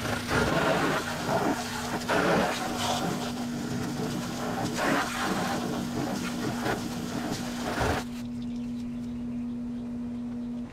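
Garden hose spray hitting and splashing off the sooty metal walls inside an electric smoker cabinet, rinsing it out, in uneven surges as the stream is swept about; the spray stops about eight seconds in. A steady low hum runs underneath.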